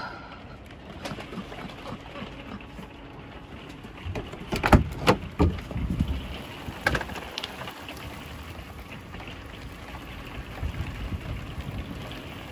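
Steady storm wind and rain noise heard from inside a camper, with a cluster of loud knocks and clunks about four to five seconds in and another near seven seconds as the camper door is opened.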